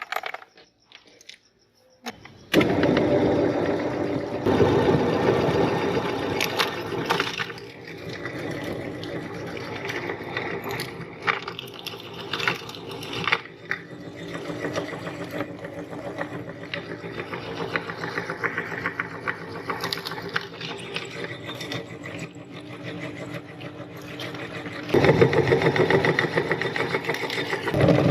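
Electric meat grinder switched on about two and a half seconds in, its motor running steadily as it grinds sticks of coloured chalk, with sharp cracks from the chalk breaking around the middle. It runs louder again near the end.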